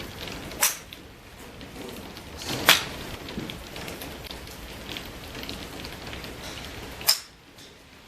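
Golf club striking balls: three sharp cracks, about a second in, near three seconds in and about seven seconds in, the loudest middle one led by the short rising swoosh of the swing. A steady hiss lies underneath.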